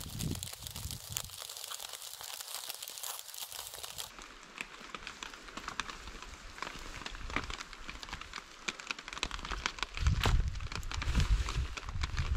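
A plastic rain poncho rustling and crinkling as its wearer moves about, with footsteps on the forest floor. Louder close-up thumps and rustling come in the last couple of seconds.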